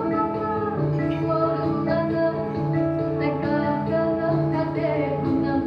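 Background music: sustained chords with a plucked string instrument, possibly with a voice.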